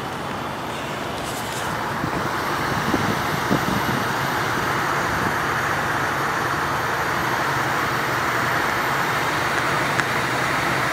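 Steady hiss of road traffic, even and unbroken.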